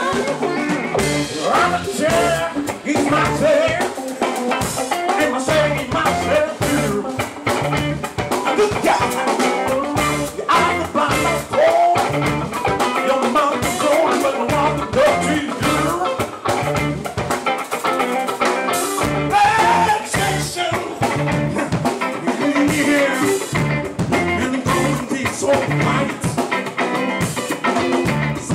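Funk band playing live: drum kit, electric bass and electric guitar in a steady, driving groove.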